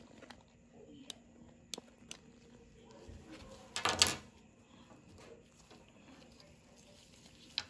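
Plastic blood collection tubes set down by hand on a hard tabletop: a short clatter about four seconds in, amid faint handling clicks.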